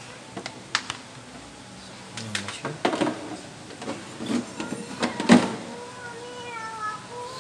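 Clicks, clatter and knocks of a diamond dermabrasion machine's housing being shifted and tilted by hand, with the loudest knock about five seconds in.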